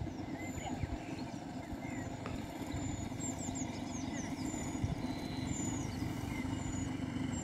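Outdoor ambience: a steady low rumble of distant traffic, with small birds chirping repeatedly in short high calls above it.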